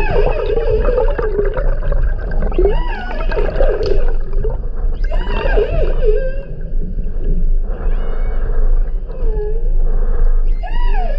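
Underwater calls of transient (Bigg's) orcas recorded through a GoPro held in the water. These are post-hunt social vocalizations: several pitched calls a few seconds apart, each rising and falling in pitch, over a steady low rumble.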